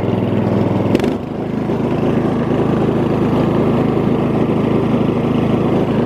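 Murray riding mower's Briggs & Stratton 15.5 hp overhead-valve single-cylinder engine running steadily under way. A sharp click about a second in, after which the engine note shifts and briefly drops before settling again.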